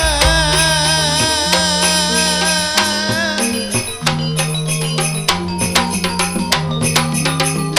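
Gamelan-accompanied Madurese folk music: a wavering melodic line held over sustained bass notes for about the first three seconds, then busy, rapid percussion strikes with the bass notes continuing.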